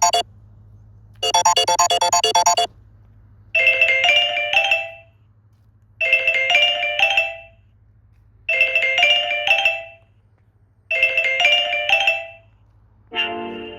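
Built-in Samsung Galaxy S8+ alert tones played one after another: a buzzy rapid-note tone repeats once more and stops, then a short bright chime of a few notes repeats four times, about every two and a half seconds. A different, lower tune begins near the end.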